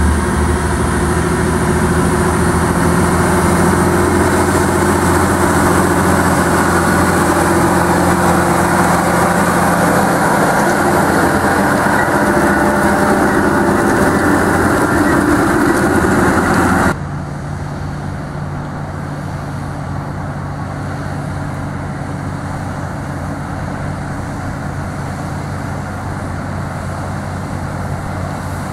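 Case IH Quadtrac tractor's diesel engine running hard under load while it pulls a disc cultivator through stubble, with a broad rush from the discs working the soil. About 17 s in the sound cuts abruptly to a quieter, more distant tractor engine running steadily.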